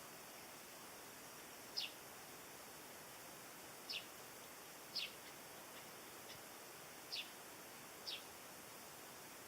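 A bird giving short, high calls that sweep downward in pitch, five times at irregular intervals of one to two seconds, with one fainter call between them, over a steady faint hiss.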